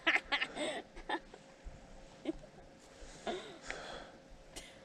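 A person laughing breathily and gasping, without words: a few short voiced sounds in the first second, then a longer breathy laugh about three seconds in.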